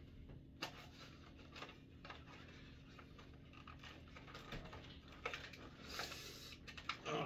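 Fingers picking, scratching and pressing at the cardboard door of an advent calendar: faint scrapes with small irregular clicks and taps of cardboard.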